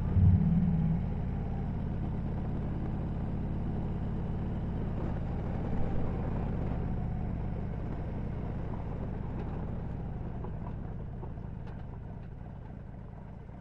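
2013 Harley-Davidson Road Glide Ultra's V-twin engine running steadily at road speed, heard from the rider's seat. It gets gradually quieter over the last few seconds as the bike slows.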